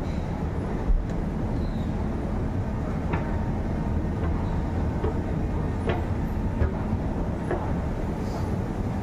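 Train running with a steady low rumble, broken by a few sharp metallic clicks and knocks.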